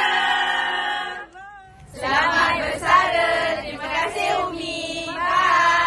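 A group of young voices calling out together in unison, first in one long drawn-out call that ends about a second in. After a short pause a second group starts chanting together.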